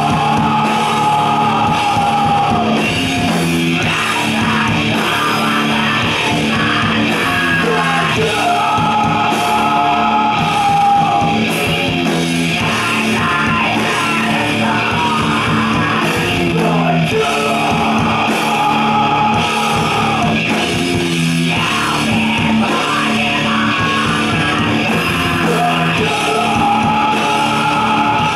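Live rock band playing loud: electric guitar, drum kit and sung and yelled vocals, with a held melodic phrase coming back about every nine seconds.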